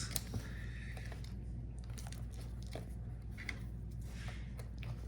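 Faint plastic clicks and crinkling as a Dell Latitude 5420's speaker is worked loose and lifted out of the laptop chassis, over a steady low hum.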